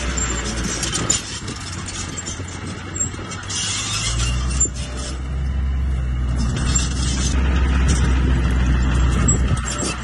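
Small crawler bulldozer's diesel engine running while its steel tracks and blade clank and crunch through broken rock. The low engine hum grows stronger about four seconds in as the blade drives into the pile, with scattered clatters throughout.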